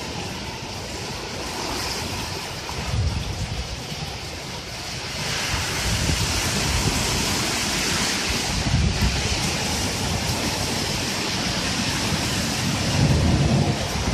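Heavy rain pouring, a steady hiss that grows heavier about five seconds in, with gusts of wind buffeting the microphone.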